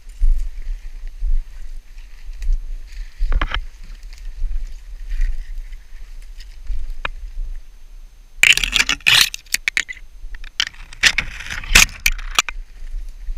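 Bare branches brushing and scraping against a jacket and a head-mounted camera while someone pushes through dense snowy brush on foot, with footsteps in snow and twigs clicking. The brushing is loudest in two scratchy bursts, one about two-thirds of the way in and one near the end.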